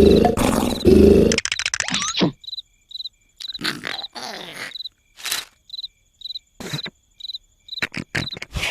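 Cartoon sound effects: a loud growl ends about a second and a half in with a short falling rattle. After it comes a cricket chirp repeating at short, even intervals, broken by several brief noisy sound effects.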